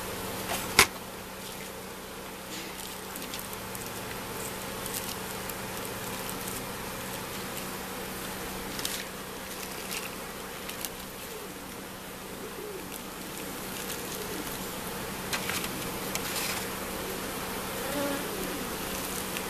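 Honeybees buzzing steadily in a steady hum over the open frames of a wooden hive. A sharp click about a second in is the loudest sound, with a few shorter rustles and clicks later as plastic bags are handled over the frames.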